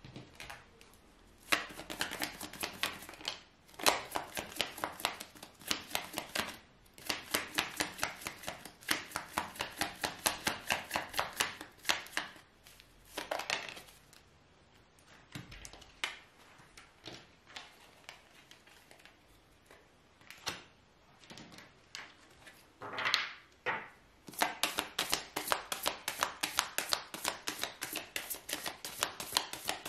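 A deck of fortune-telling cards being shuffled by hand: rapid runs of light card slaps, several a second, broken by a few seconds of scattered clicks in the middle before the shuffling picks up again.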